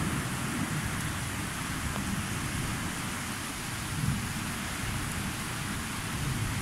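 Steady rain falling in a thunderstorm, with a low rumble of distant thunder underneath that eases off and then swells again near the end.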